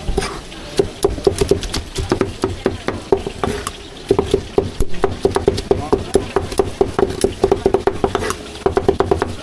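Cleaver chopping stewed meat on a wooden block: a rapid run of sharp knocks, several a second, with short pauses between runs.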